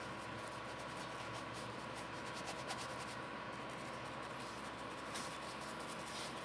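Faint, irregular scratchy strokes of a bristle brush working oil paint into fabric, over a steady background hiss with a faint constant tone.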